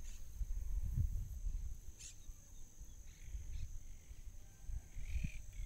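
Outdoor ambience at a pond's edge: a low rumble on the microphone under a steady high-pitched drone, with a few faint bird calls. Nothing stands out from the eel slipping back into the water.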